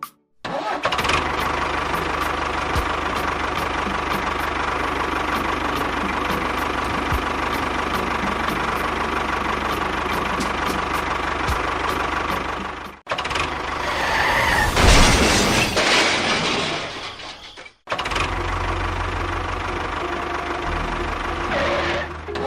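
A small motor running steadily, with a faint whine. It is heard in three stretches split by abrupt cuts, about 13 and 18 seconds in, and the middle stretch is louder.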